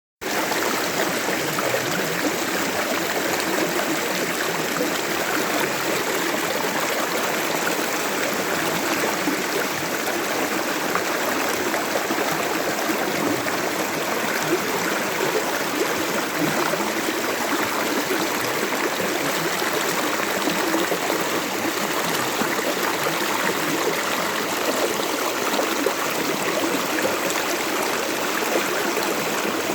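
Water of a small stream flowing and gurgling over rocks, a steady rushing babble.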